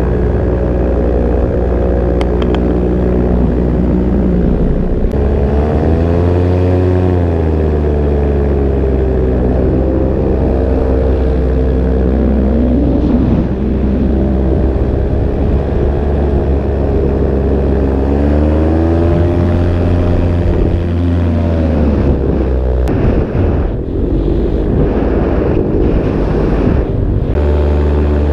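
Paramotor engine and propeller running in flight, with wind rushing past. The engine is throttled up and back down twice, about a quarter of the way in and again past the middle, and it wavers briefly near the end before settling back to a steady run.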